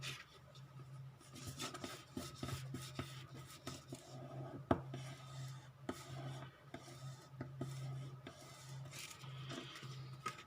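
Hands rubbing and pressing glued paper down onto card: irregular paper scrapes and rustles, with one sharp tap about halfway through, over a faint steady low hum.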